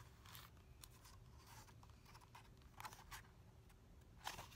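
Near silence with a few faint rustles of a picture book's paper pages being handled, and a louder paper rustle near the end as a page is turned.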